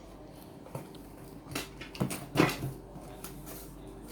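Lego box contents and packaging being handled: a few short rustles and knocks, the loudest about two and a half seconds in.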